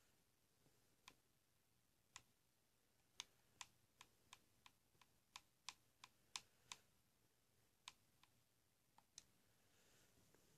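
Faint, irregular sharp clicks, about fifteen in eight seconds, against near silence: someone clicking at a computer while skipping through a video.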